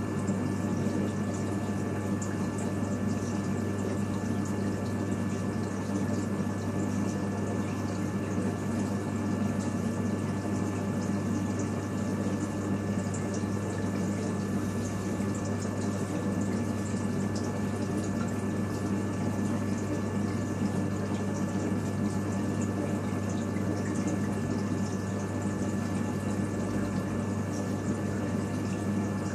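Reef aquarium's pumps and circulating water running steadily: a constant low hum with water trickling and sloshing over it.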